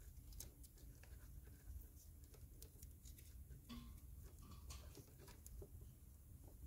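Near silence: faint, scattered small clicks and ticks over a low steady hum.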